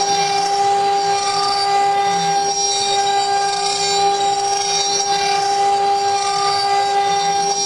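CNC router spindle running with a steady, unchanging whine over the hiss of the bit cutting wood.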